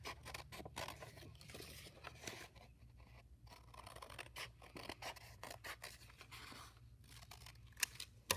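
Scissors snipping through a sheet of painted paper in a run of short cuts, with a couple of louder clicks near the end.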